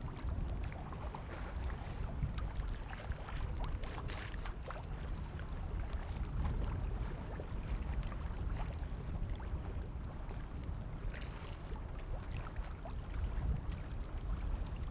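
Small waves on Lake Michigan lapping and splashing, with many small splashes over a steady low wind rumble.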